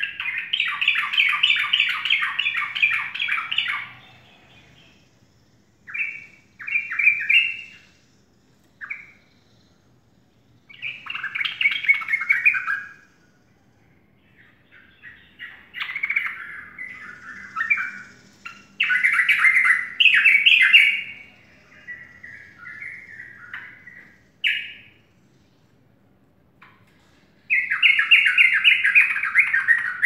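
Yellow-vented bulbul singing: several chattering phrases of rapid repeated notes, each lasting a second to a few seconds, with short pauses between them.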